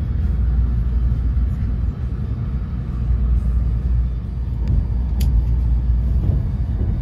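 Steady low rumble of a Shinkansen bullet train running at speed, heard from inside the passenger cabin, with a couple of faint clicks about five seconds in.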